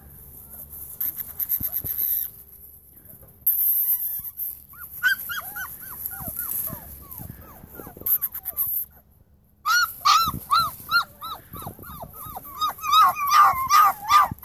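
Akita puppies whimpering and yipping, short arching cries several a second, starting about five seconds in and growing denser and louder after a brief lull near nine seconds.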